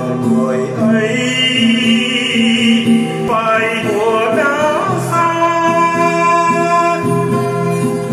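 Slow Vietnamese song: a man singing long, held notes with acoustic guitar accompaniment.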